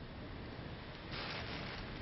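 Hurricane wind and rain rushing steadily outside a window, with a louder gust about a second in that dies back just before the end.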